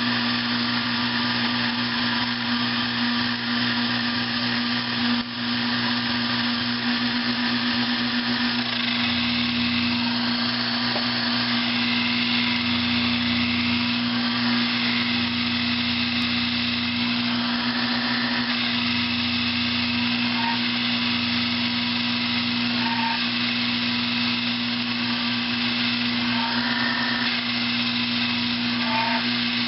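Sherline model 4000 benchtop lathe running steadily while a parting-off tool, fed slowly in by the cross-slide handwheel, cuts a turned venturi sleeve off to length. A constant motor hum, with the higher cutting tones shifting a little as the tool goes deeper.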